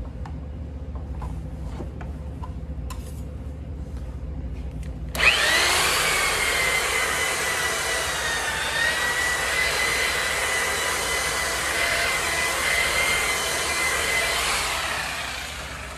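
Handheld electric polisher with a round pad buffing a Venetian plaster panel: it starts about five seconds in and runs with a steady high motor whine and pad rubbing, then winds down near the end. Before it, a few light clicks and scrapes from a hand trowel at the panel.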